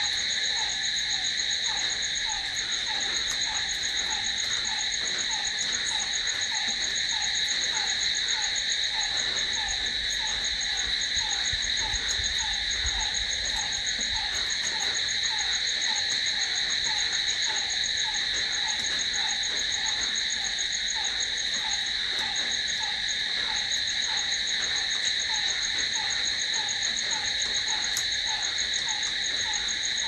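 Crickets trilling in a steady chorus, several high-pitched continuous trills layered together. Under them a lower, short falling chirp repeats about twice a second.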